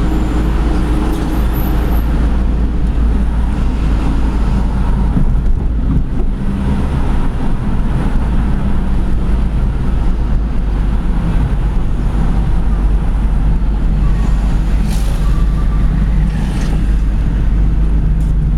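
Moving car heard from inside the cabin: a steady deep rumble of engine and road, with a low engine hum.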